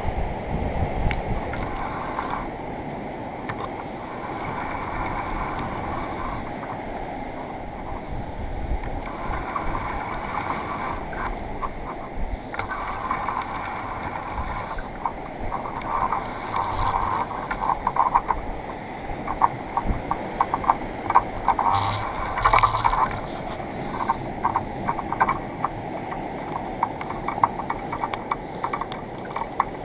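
Wind blowing over the microphone and sea surf washing against rocks, a steady rushing. Over it, in the middle part, come irregular clicks and rattles.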